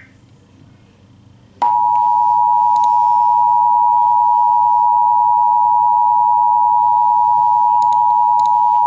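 Emergency Alert System two-tone attention signal: a loud, steady dual tone that starts about a second and a half in and holds. It is the alert tone that announces the spoken warning message to follow.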